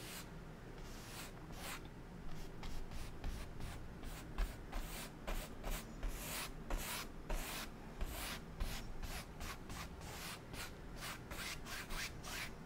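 Paintbrush bristles rubbing across a wet oil-painted canvas in short repeated strokes, about two a second, blending the mountain colour out to take off excess paint.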